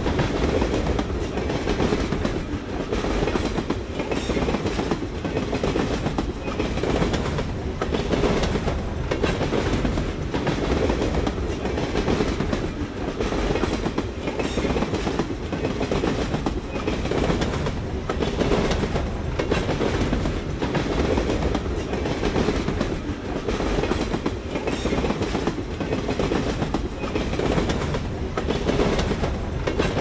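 Train rolling past, its wheels clacking over the rail joints: a steady rumble with frequent, uneven clicks that keeps on without a break.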